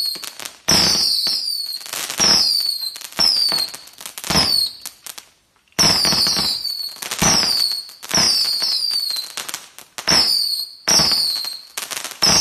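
Scream 200-shot whistle cake firing fast whistling shots. Each shot is a sharp pop followed by a shrill whistle falling in pitch, and several overlap in quick succession. There is a brief lull about five seconds in.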